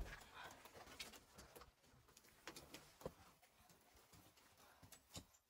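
Near silence with a few faint, scattered footsteps, heard as isolated taps about a second apart or more.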